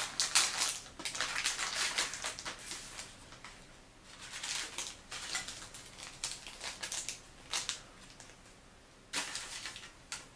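Plastic packaging crinkling and rustling in irregular bursts as a snack kit's bag is opened and its plastic tray and small powder packets are handled, loudest at the start.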